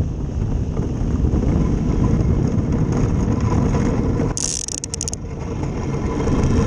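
Ice boat's steel runners rattling and rumbling over the lake ice at speed, a dense, steady clatter. About four seconds in, a brief high hiss with a few quick scrapes lasts under a second.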